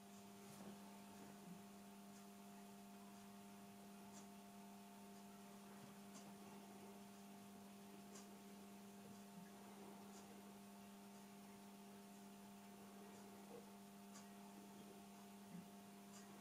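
Near silence: a faint steady electrical hum under low hiss, with a few faint scattered ticks.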